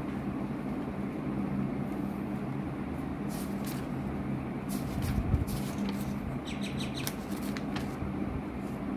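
A steady low mechanical hum over background noise, with a scattering of short high ticks in the second half.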